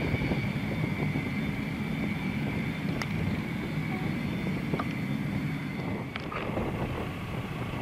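Cessna Citation II's twin Pratt & Whitney JT15D turbofan engines running at low taxi power: a steady high whine over a low rumble, the whine easing off as the jet moves away.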